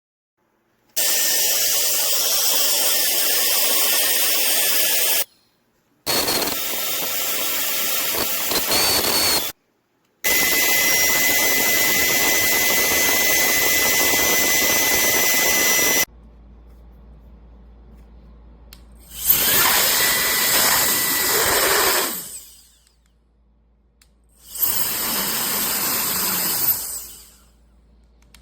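Cordless electric air duster (CCV F33) running in five separate bursts of a few seconds each: a small high-speed motor blowing a rushing jet of air, starting and stopping sharply, with a steady high whine through the middle burst.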